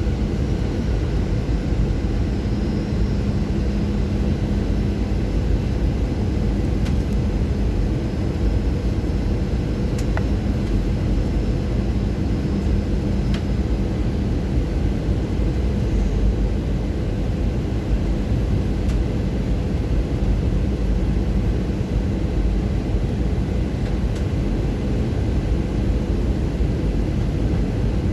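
Airbus A320 cabin noise on descent with the slats extended: a steady rush of airflow and engine hum, with a faint low drone running through it.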